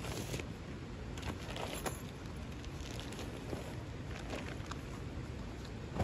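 Rustling and light knocks of a camping stuff sack and rolled foam sleeping mat being handled, a few short clicks scattered through, over a steady low outdoor rumble.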